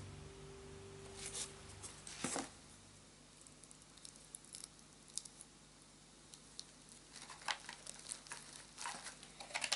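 Plastic packaging crinkling and rustling as it is handled, with scattered small clicks. There is a louder rustle about two seconds in and a denser run of rustles near the end.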